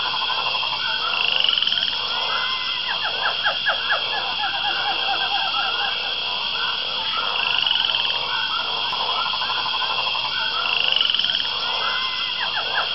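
Jungle ambience: a dense chorus of frogs croaking, over a steady high-pitched buzz.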